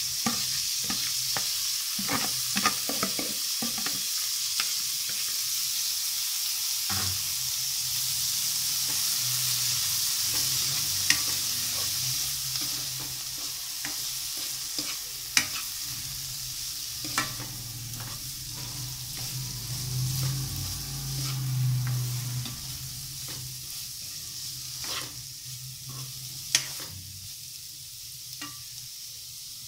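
Diced beetroot sizzling in hot oil in a frying pan, with scattered clicks and scrapes of a spatula stirring it.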